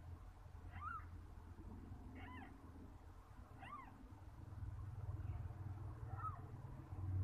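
Newborn kitten mewing: four or five short, thin, high-pitched cries, each rising and falling, spaced a second or more apart.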